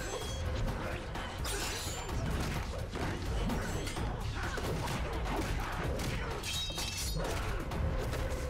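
Fight-scene sound effects: a rapid string of hits and impacts with a few short metallic clangs, over a low, steady music score.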